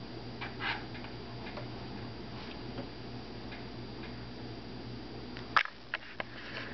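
Steady low electrical hum with faint, scattered ticking, and three sharp clicks in quick succession about five and a half seconds in.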